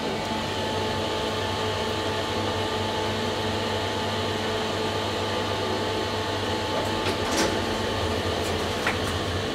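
2012 SMW traction elevator car travelling: a steady low motor hum with a faint steady whine, easing off near the end, and a couple of light clicks near the end.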